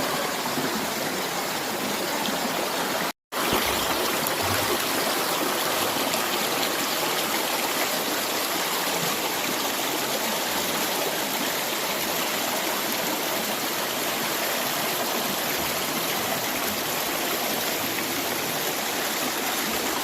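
Waterfall rushing, a steady unbroken hiss of falling water that cuts out completely for a moment about three seconds in.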